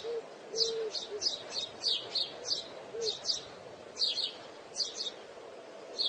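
Alexandrine parakeet chirping: short, high, falling chirps, often in quick pairs, about two to three a second, with a few faint low notes among the early ones.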